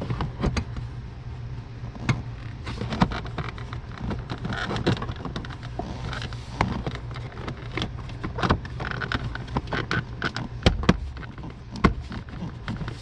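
Irregular clicks and knocks of car parts being handled and fitted back into place by hand, over a steady low hum.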